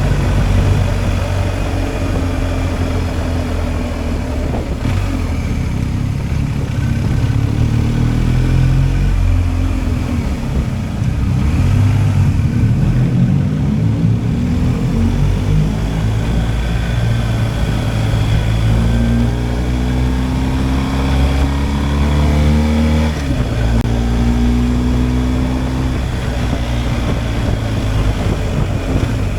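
BMW R 1250 GSA's boxer-twin engine running on the move, with wind noise over it. About two-thirds through, the engine note rises as the bike accelerates, then drops suddenly at a gear change and runs on steadily.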